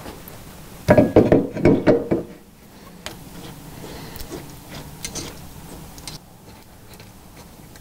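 Steel clamp and bolt being handled and tightened up under a lathe headstock against the cast-iron bed ways: a short metallic clatter about a second in, then light ticks and rubbing as the bolt is worked.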